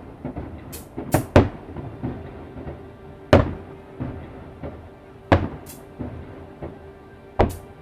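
Fireworks going off: sharp booms at uneven intervals, each trailing away in a short echo, with brief high hisses between some of them.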